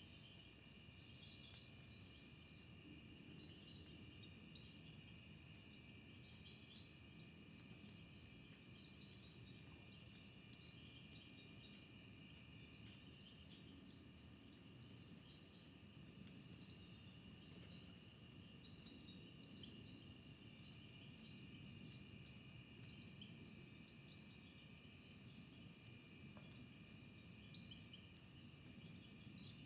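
Faint woodland insect chorus of crickets and similar insects: several steady high trills at different pitches over a low background hum, with a few short high chirps a little past the middle. The uploader takes the sparse chorus of the 2022 recording as a sign of fewer frogs and insects.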